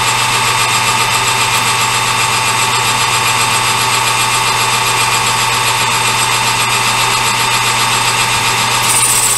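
Metal lathe running steadily as a small brass part is turned down to a quarter inch. A higher whine joins near the end.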